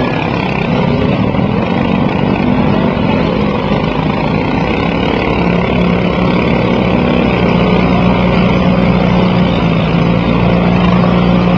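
Riding lawn mower engines running together in a steady, loud drone, with one engine's pitch coming up and holding higher after about five seconds.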